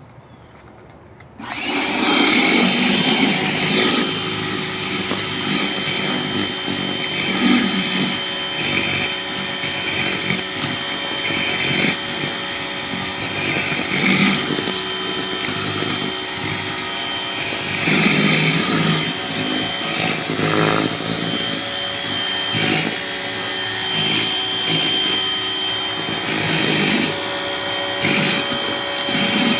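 Electric pressure washer starting about a second and a half in and then running steadily, with a high whine over the hiss of water spraying through a surface cleaner attachment.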